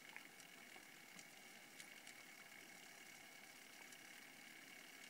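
Near silence: faint steady hiss with a thin high tone and a few soft ticks.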